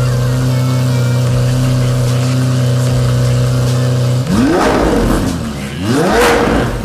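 Lamborghini Aventador's V12 engine idling steadily, then revved twice in quick succession about four seconds in, each rev rising and falling in pitch.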